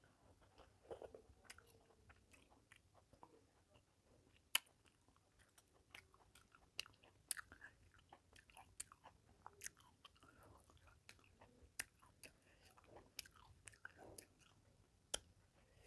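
Faint close-up chewing and wet mouth clicks of someone eating rice and fish curry, with many irregular sharp clicks throughout.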